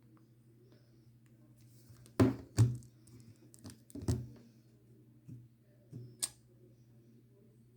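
Handling noise: a few knocks and clicks over a low steady hum. The loudest are two close knocks about two seconds in, followed by another knock about four seconds in and a sharp click about six seconds in.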